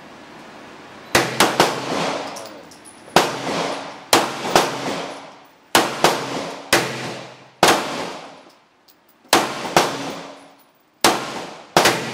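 Pistol shots fired one at a time at an uneven pace, about a dozen in all, each followed by a short ringing echo.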